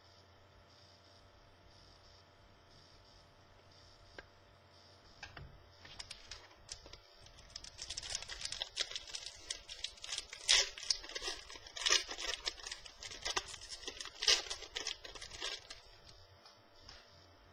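Trading-card pack wrapper being torn open and crinkled: a few seconds of near-quiet room tone, then from about five seconds in a dense run of crackling and rustling that dies away near the end.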